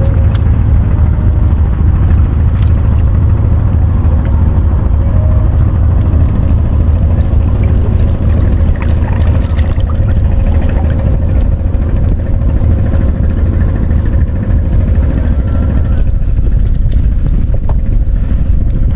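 Steady loud low rumble throughout, with a few short light splashes of water.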